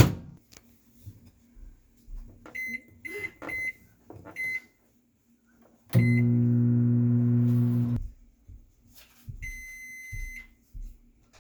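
Microwave oven: a sharp clack, four short keypad beeps, then the oven running with a loud steady hum for about two seconds before it stops and gives one longer end-of-cycle beep.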